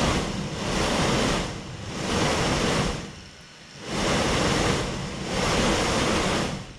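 A DC motor spinning a 3D-printed fan blade, giving a loud rush of air that swells and fades about every second and a half, with one deeper lull around the middle.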